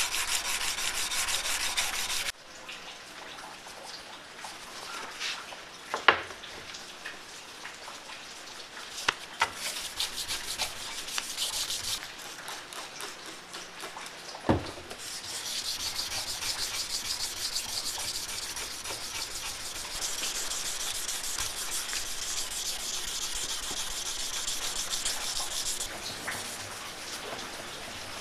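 Sandpaper worked by hand on a steel knife blank cut from a saw blade and clamped in a vise, rubbing back and forth in quick strokes. The sanding is loudest for the first two seconds and then stops abruptly. A quieter stretch with a few sharp clicks follows, then about ten seconds of steady sanding on the water-wetted blade.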